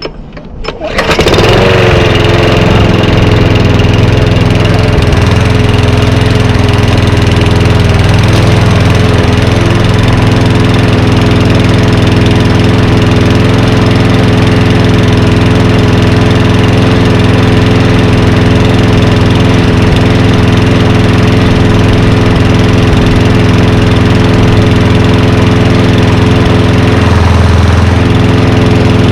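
2010 Lawn-Boy 10642 walk-behind mower engine pull-started from cold: it catches about a second in and then runs steadily and loudly.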